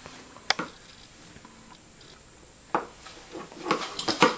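A baby's wet mouth sounds and soft clicks while being spoon-fed: a single sharp click about half a second in, then a string of small clicks and smacks in the last second as the spoon goes into his mouth.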